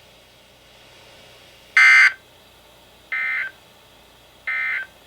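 Weather radio SAME end-of-message code: three short bursts of digital data tones about 1.4 seconds apart, the first the loudest. They signal the end of the broadcast flood warning.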